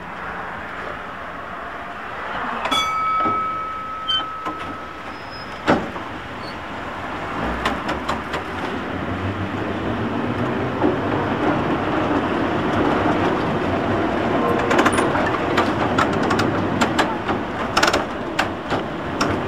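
Vintage electric tram heard from inside, pulling away and running along the track. Its rumble builds from a little before halfway, and the wheels click sharply over rail joints and crossing work in the later seconds. A short high tone sounds about three seconds in.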